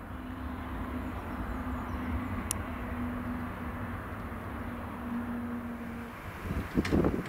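Airport ambience: a steady low rumble of jet aircraft noise with a faint steady hum that stops about six seconds in. A short louder burst of noise comes near the end.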